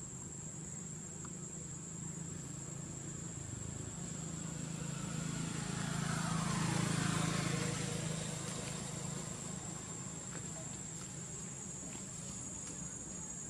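Steady high-pitched insect drone over a passing motor vehicle, whose low engine hum swells to its loudest about seven seconds in and then fades away.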